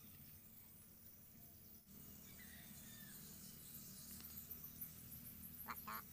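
Near-silent outdoor ambience with faint bird and insect chirps, ending in a short burst of rapid chattering calls.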